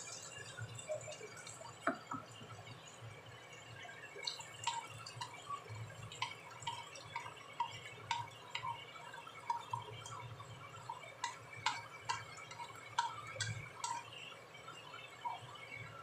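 Beaten eggs frying in hot oil in a nonstick wok: small irregular pops and crackles of spitting oil, several a second, with a few sharper clicks, over a low steady hum.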